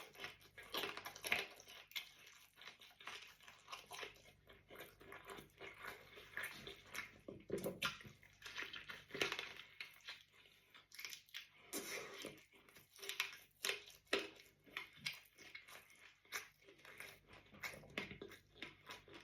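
A person chewing and biting into pizza and chicken close to the microphone: a steady run of irregular short, wet mouth noises.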